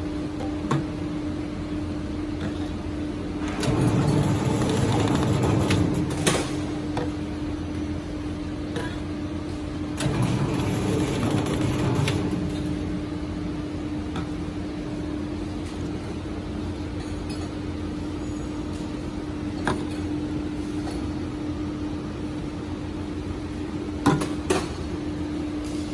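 Semi-automatic can seaming machine running with a steady motor hum. Twice it whirs louder for a couple of seconds as the seaming head spins and rolls an easy-open lid onto a clear plastic can. A few sharp clicks and knocks come from the can being handled.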